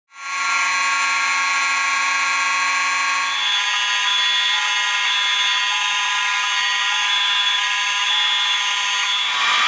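Fire alarm horns sounding continuously, starting suddenly. The steady, many-toned sound has no on-off pattern, and its mix of tones shifts about three and a half seconds in and again near the end.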